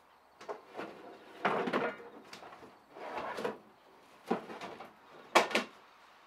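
A series of irregular knocks and scrapes, about seven in all, the loudest a scraping burst about a second and a half in and a sharp knock near the end.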